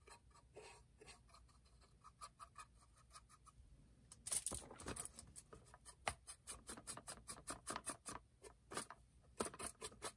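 Soft brush scratching and dabbing weathering powder onto the plastic side of an HO-scale boxcar, with a short, louder bout of brushing about four seconds in. A faint, quick ticking, about five ticks a second, runs underneath.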